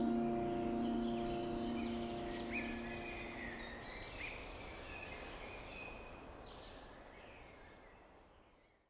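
Bird chirps over an outdoor ambience, under the last held chord of background music, which dies away in the first few seconds. The whole sound then fades steadily out to silence near the end.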